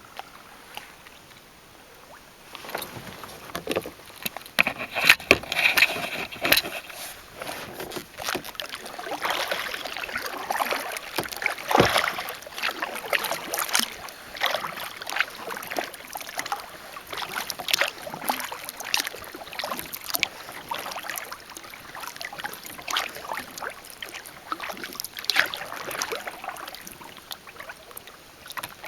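Kayak paddle strokes, the blades dipping and splashing water in an uneven run of splashes and drips, starting about two seconds in.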